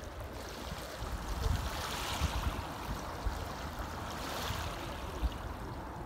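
Small River Thames wavelets lapping and washing on the shingle foreshore, a steady watery wash that swells a little now and then. Irregular low rumbles run underneath it.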